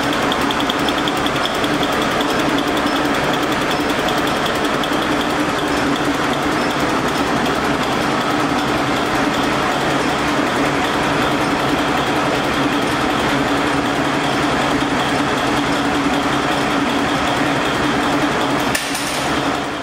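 Stationary diesel engine running steadily, driving a pump or compressor through vee belts, with an even mechanical clatter.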